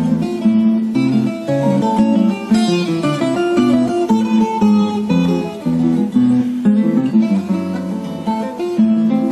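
Instrumental bambuco played as a duo: a small plucked string instrument and an acoustic guitar, with a quick plucked melody over a steady bass line.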